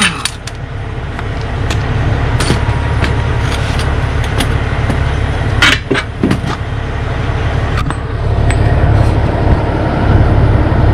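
Steady low vehicle-like rumble, with a few sharp metal clinks as loosened wedges and nuts from a truck spoke wheel are pulled off and set down, the strongest about six seconds in.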